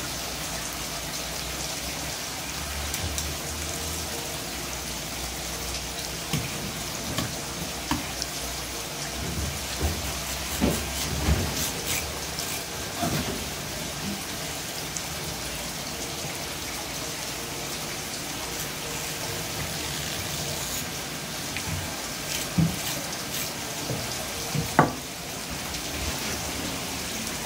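Kitchen knife cutting along a conger eel on a wooden cutting board: scattered scrapes and knocks as the blade slides and taps the wood, the sharpest knock a few seconds before the end, over a steady background hiss.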